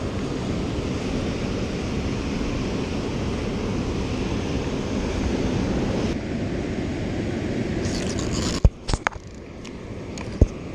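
Steady rush of water pouring through the dam's spillway gates; it drops in level about six seconds in. Near the end come a few sharp clicks and knocks from hands handling the rod and reel close to the camera.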